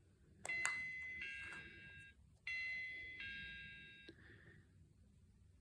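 Electronic doorbell chime playing a two-note ding-dong twice in a row, each chime opening with a click and cutting off sharply after the second note.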